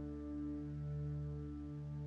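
Ambient background music made of held, steady tones.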